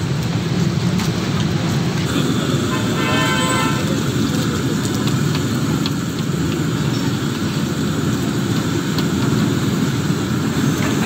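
Oil sizzling steadily as vegetable rolls deep-fry in a large wok, under a continuous low rumble of street traffic. A vehicle horn toots briefly about three seconds in, and the metal skimmer clicks against the wok a few times.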